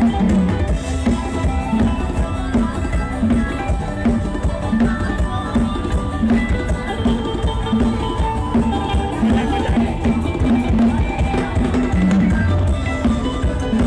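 Music with a steady drum beat, played loud through a large outdoor PA sound system under test.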